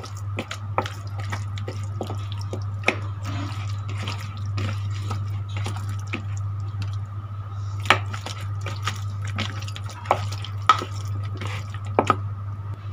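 A hand squishing and turning raw chicken pieces in a thick wet marinade in a plastic bowl: irregular wet squelches and sticky clicks, over a steady low hum.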